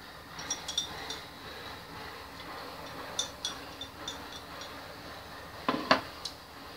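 Chopsticks clinking lightly against a ceramic bowl several times, then the bowl set down on the table with a louder double knock near the end.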